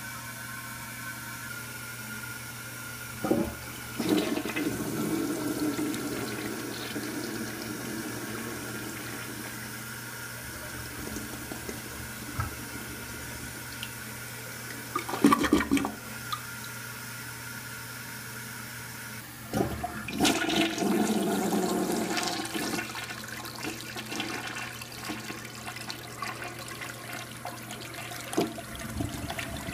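1979 American Standard Cadet elongated gravity toilet (3089.018 bowl, 4049.052 tank) flushing twice, about four seconds in and again about twenty seconds in. Each flush starts with a short sharp knock and is followed by several seconds of water rushing and swirling down the trapway. Between the flushes, water runs steadily as the tank and bowl refill.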